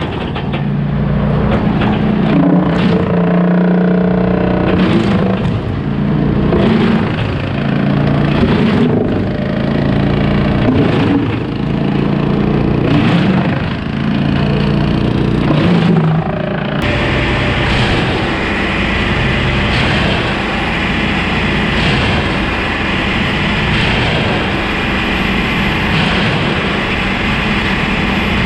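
Diesel engine of a Brush Bandit 280XP wood chipper running just after its first start in a year, with oil pressure up. About two-thirds of the way through, the sound changes abruptly to a steadier, brighter running noise.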